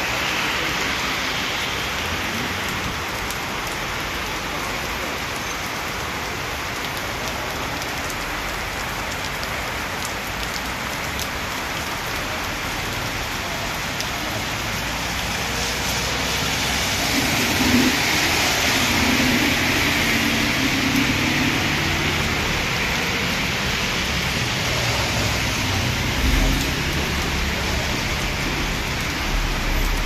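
Heavy rain pouring onto a flooded street: a steady, dense hiss of rain hitting water. About halfway through, a vehicle's engine and the swish of its tyres through the water swell up over the rain for several seconds, then fade back.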